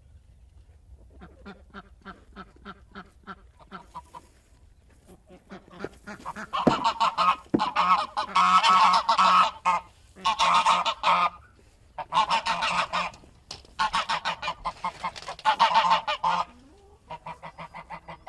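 Geese honking: soft, rapid calls at first, then loud bouts of honking from about six seconds in, broken by short pauses, settling back to softer rapid calls near the end.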